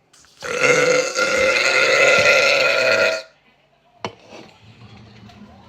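A woman's long burp of about three seconds, starting half a second in, followed by a short click about a second after it ends.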